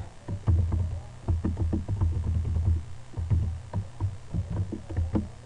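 Typing on a computer keyboard: quick, irregular keystroke clicks, each with a dull low thud, in two runs with a brief pause about three seconds in.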